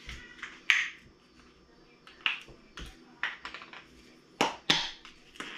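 A small spice jar of dried basil being handled, giving irregular sharp clicks and light rattles. The loudest click comes about three-quarters of a second in, with two more strong ones around four and a half seconds.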